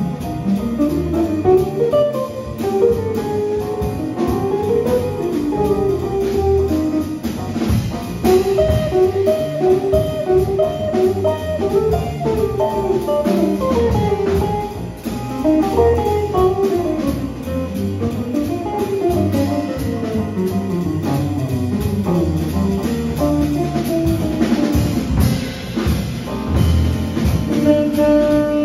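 Live small-group jazz: a hollow-body electric guitar solos in quick single-note lines over upright bass, drum kit and keyboard. Near the end a saxophone comes in on a held note.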